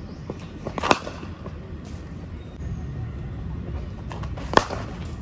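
Two sharp cracks of a cricket bat striking a new ball, one about a second in and one near the end, over steady low outdoor background noise.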